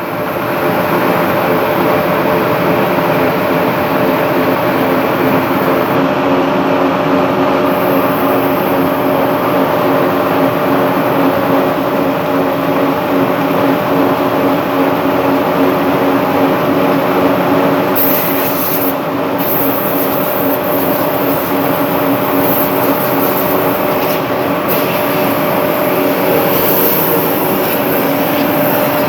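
Slitting machine running steadily: a loud, continuous mechanical run with several steady hum tones over a broad hiss. From about 18 seconds in, a high hiss cuts in and out several times.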